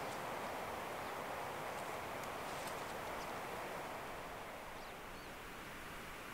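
Steady outdoor background hiss that eases slightly about four seconds in, with a few faint ticks in the first three seconds.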